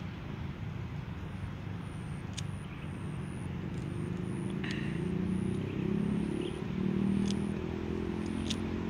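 A motor engine droning steadily, growing louder about halfway through, with short high chirps repeating over it.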